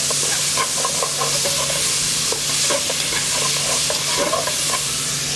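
Bacon sizzling in hot oil in an aluminium stockpot while it is stirred, the spoon scraping and tapping against the pot. The strong, steady sizzle is the sign that the pan was hot enough before the meat went in.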